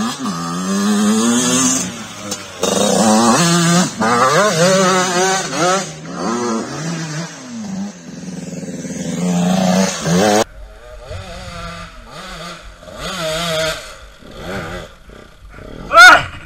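Small two-stroke dirt bike engines revving hard and falling back again and again. The sound changes abruptly about ten seconds in, and a short, sharp rev near the end is the loudest moment.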